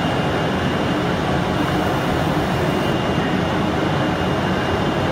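CNC flatbed cutting table running: a steady rush of machine noise with a thin, steady high whine.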